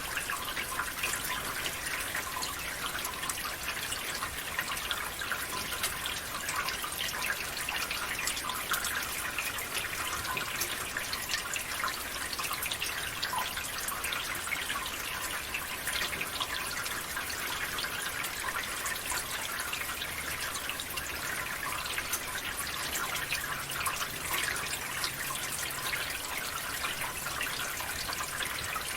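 Water flowing through a gutter: a steady trickle full of many small drips and splashes.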